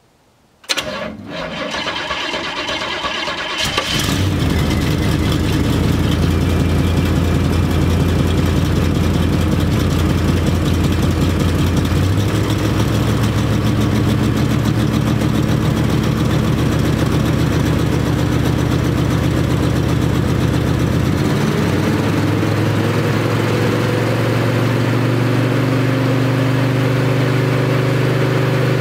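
1978 Chevrolet pickup's engine cranking on the starter for about three seconds on a cold start, then catching and running at a fast idle. The idle speed steps up about midway and rises again near the end.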